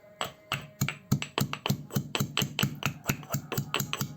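Peeled garlic cloves being pounded, a rapid series of knocks at about five a second that starts just after the beginning. They are being crushed only coarsely, into a few pieces each rather than a paste.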